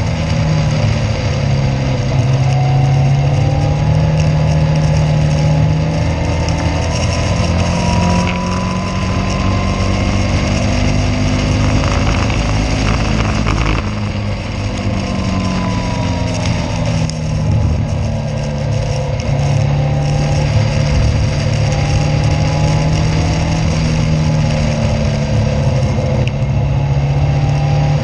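Caterham race car's engine heard onboard at racing speed, its revs climbing and falling again and again through gear changes, with a brief drop in level about fourteen seconds in.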